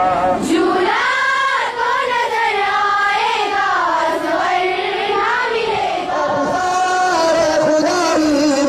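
Children's voices singing a noha, a Shia mourning lament, together in a long, slowly rising and falling melodic line.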